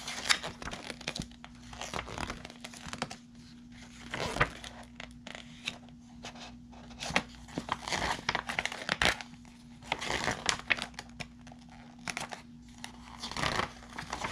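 Glossy paper booklet pages being turned and handled, with irregular crinkling rustles and page flaps that come in flurries.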